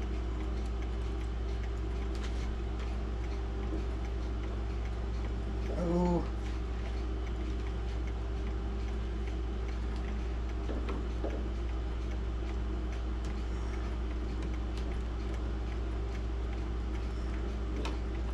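Faint, irregular light metal clicks of small clock pins and pliers being handled at a grandmother clock's movement, over a steady low hum. A short hummed murmur from a man about six seconds in.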